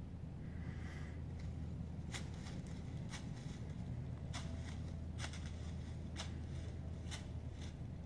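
A white-tailed deer's hooves crunching through dry fallen leaves, heard as irregular crackles starting about two seconds in, over a steady low rumble.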